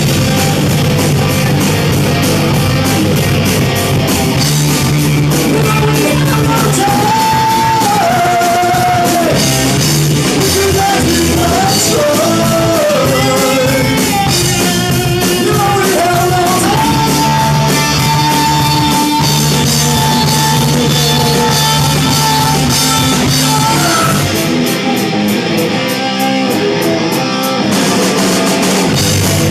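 Hard rock song playing loud, with a lead vocal or lead guitar melody over electric guitar, bass and drums.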